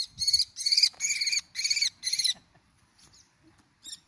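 A bird of prey calling in a quick series of loud, high calls, about five in the first two seconds, with two fainter calls near the end.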